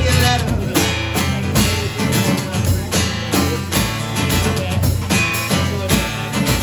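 Live acoustic guitar strummed over a small drum kit played on the snare, keeping a steady beat, in an instrumental passage without singing.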